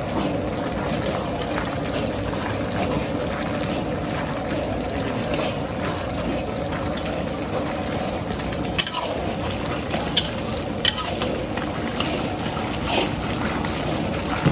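A long paddle stirs thick curry in a large metal karai over a steady loud rumble. In the second half it gives several sharp scrapes and knocks against the pan.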